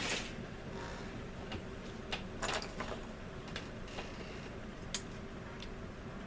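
Light, irregular clicks and taps of plastic scale-model kit parts being picked up and handled, about eight short ticks spread across a few seconds over a steady low background.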